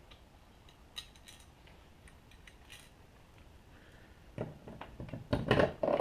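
Light clicks and knocks of small hard parts being handled and fitted during reassembly of the truck's fuel filler housing: a few scattered clicks at first, then a busier clatter of handling knocks in the last second and a half.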